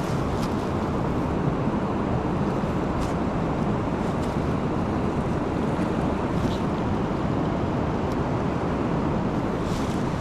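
River water rushing steadily, an even noise with no change, with a few faint clicks on top.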